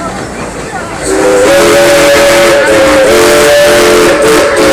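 Steam locomotive's whistle sounding a chord of several notes over steam hiss. It comes in loudly about a second in and holds with a couple of short dips.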